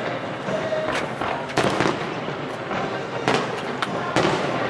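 Aerial fireworks shells bursting overhead in an irregular string of about seven bangs, some coming close together, each trailing a short rumbling echo.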